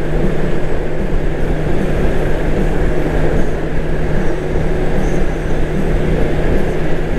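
Honda GL1800 Gold Wing's flat-six engine running at a steady cruise, with a constant low hum under a rush of wind and road noise.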